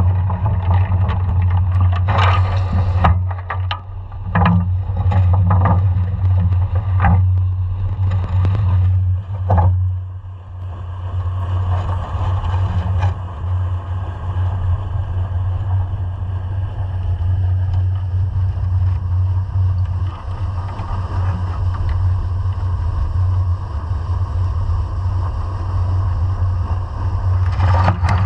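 A scallop survey dredge under tow, heard underwater from a camera on its frame: a steady low hum throughout, with a run of sharp knocks and scrapes during the first ten seconds and a few more near the end.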